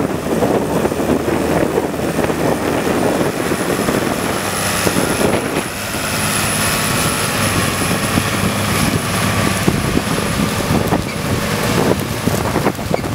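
New Holland tractor's diesel engine running steadily as it pulls a Samson slurry tanker with a soil injector past at close range.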